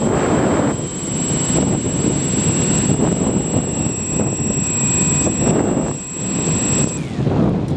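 Easy Star model plane's electric pusher motor and propeller running in flight, heard from the onboard camera with heavy wind rush over the microphone. The motor's thin whine drops away near the end, as if the throttle is cut back to glide.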